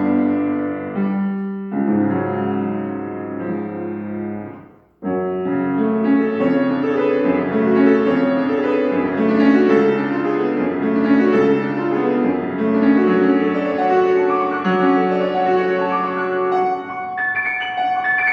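Solo piano playing a classical piece. The sound cuts out almost completely for a moment about five seconds in, then the playing resumes straight away, moving into brighter high notes near the end.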